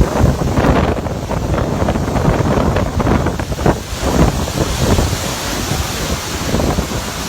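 Strong typhoon wind gusting hard against the microphone: a rough, continuous rush that surges and eases every second or so.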